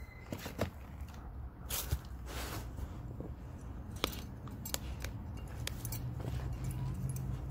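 Jindo dog chewing on a big whole fish: irregular crunches and sharp clicks of its teeth biting into the fish.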